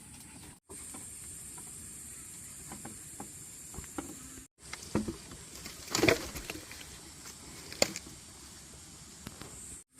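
Scattered light knocks and clicks over a steady high hiss, with a louder cluster of knocks about six seconds in and a sharp click near eight seconds.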